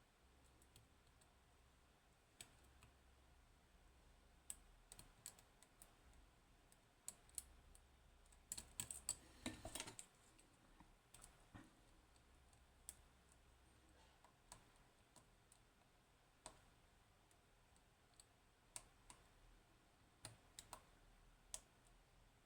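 Faint, scattered sharp clicks of lock picks working the pins of a 15-pin Codkey Locksys lock, with a quick flurry of clicks about halfway through.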